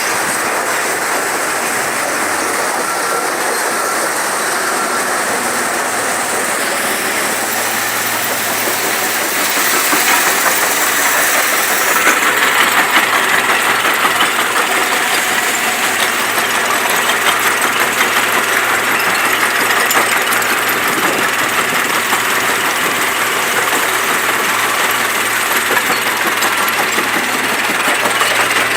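Machinery at a construction-debris recycling plant running continuously, with dense clattering over it and a steady low hum that comes in about eight seconds in.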